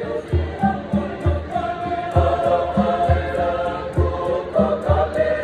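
Girls' choir singing in parts, over a steady beat of low thumps about two or three times a second.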